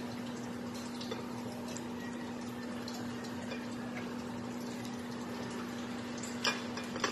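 Pot of water with shredded bamboo shoots at a rolling boil: steady bubbling with scattered small pops over a constant low hum. Two sharper clicks come near the end.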